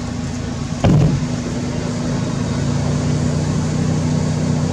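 A motor engine running with a steady low hum. About a second in there is a sudden loud burst whose pitch drops quickly, and the hum runs louder after it.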